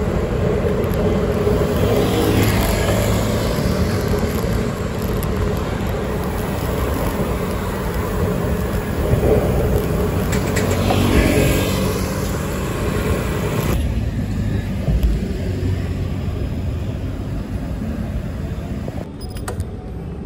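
Wind rushing on the microphone and road traffic noise during a bicycle ride on a road at night. Two swells of a passing vehicle come about two seconds in and around ten seconds in, and the hiss quietens about fourteen seconds in.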